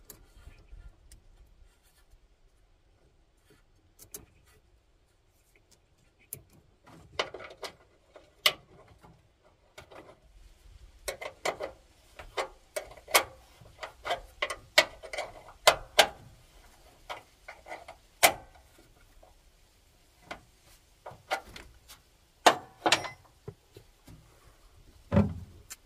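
Irregular clicks, taps and clanks of hand tools and metal cable parts being handled during wiring work. They are sparse at first, then come thick and fast in the middle.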